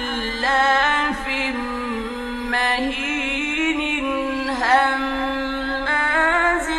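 Male reciter chanting the Quran in the ornamented mujawwad style: long held notes with wavering melismatic turns, in several phrases, on an old 1959 radio recording.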